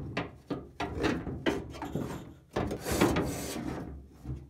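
Manual crank-window regulator being worked loose and pulled out through the access hole of a 1985 Toyota pickup's steel door: a run of metal clunks and knocks, with a longer scraping rub about two and a half seconds in.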